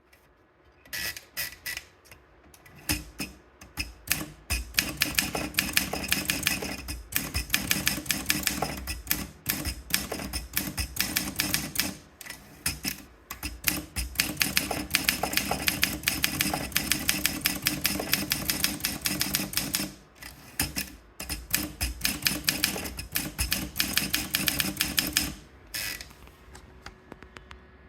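Olympia SM3 Deluxe manual portable typewriter being typed on quickly, a rapid run of sharp key and typebar strikes, with brief pauses about twelve and twenty seconds in, stopping a couple of seconds before the end.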